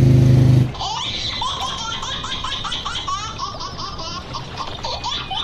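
High-pitched laughter in quick repeated peals, starting under a second in, after a loud low steady hum cuts off abruptly.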